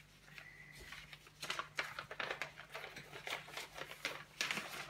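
Quick light rustles and taps of something being handled, quiet at first, then a dense run of them from about a second and a half in.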